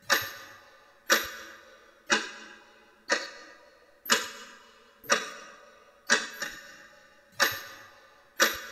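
Ticking sound effect: one sharp, ringing tick about once a second, evenly spaced, each fading away before the next.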